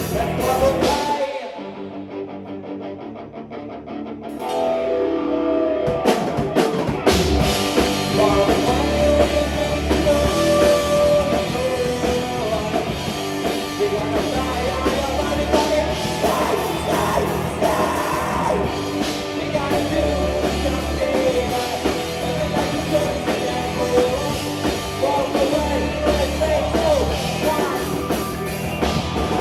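Live rock band playing with a lead singer, drums and guitars. About a second in, the drums and bass drop out for a few seconds, leaving a quieter, thinner passage. Then the full band comes back in.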